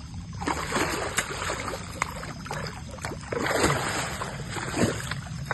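Water splashing and sloshing as a hooked blue catfish thrashes at the surface while it is being landed.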